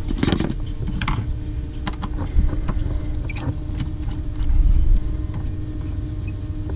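Hand tools clicking and knocking against plastic and metal engine-bay parts at irregular moments as intake hoses and clips are worked loose, over a steady low rumble and a constant hum.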